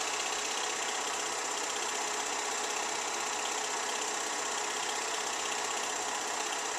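Movie film projector running: a steady mechanical whirr with a rapid, even clatter that does not change.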